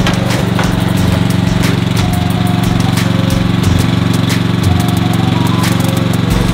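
Ride-on lawn mower engine running at a steady speed as the mower drives over bumpy dirt, with scattered sharp clicks.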